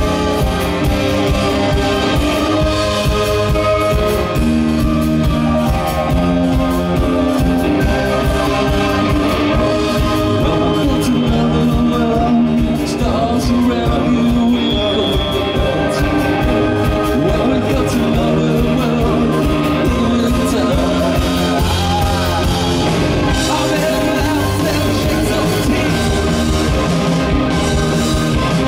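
Indie rock band playing live: electric guitar, keyboard and drum kit, with a man singing lead vocals.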